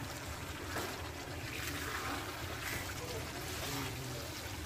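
Thick chicken curry sizzling and bubbling in a pan over a high gas flame, with a silicone spatula stirring through it in a few louder strokes; the water is almost cooked off and the masala is frying in its oil.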